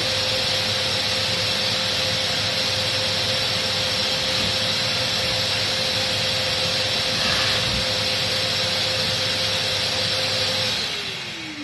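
Fortezzo SCY-1520 diamond core drilling rig, with a vacuum hose on its dust collector, running steadily with a hiss and a steady whine. Near the end it is switched off, and the whine falls in pitch as the motor winds down.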